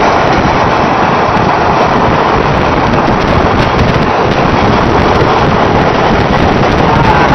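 Strong wind blowing hard across the microphone: a loud, steady rush of noise without letup, in the gusty winds near a tornado.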